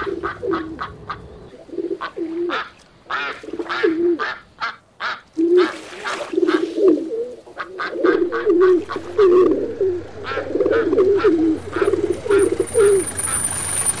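Pigeons cooing in repeated low, warbling phrases, with short sharp chirps of small birds over them.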